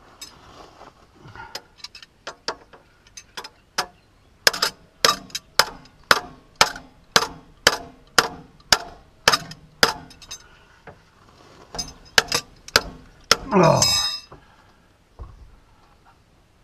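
Sharp metallic taps, about two a second, at the side-stand pivot of a Honda XRV motorcycle during a makeshift repair of the broken side stand. Near the end comes a short sound that falls steeply in pitch.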